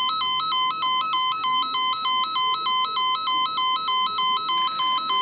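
Railway station platform emergency alarm, set off by the platform emergency stop button: a loud electronic two-tone warble alternating steadily between two high pitches about two and a half times a second.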